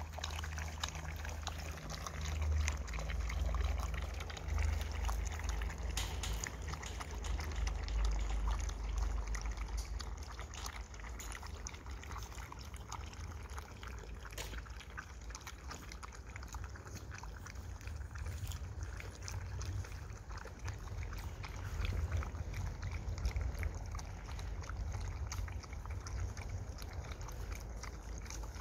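A litter of Golden Retriever puppies lapping from a shared metal feeding pan: many small, irregular wet clicks over a steady low rumble.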